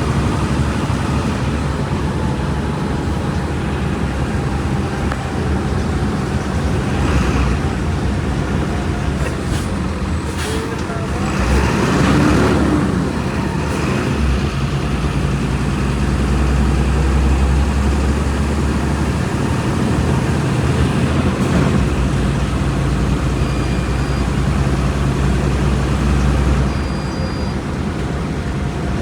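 Diesel engine of a Volkswagen Volksbus 17.230 EOD bus running, with a louder swell about twelve seconds in and a deep steady drone through much of the second half.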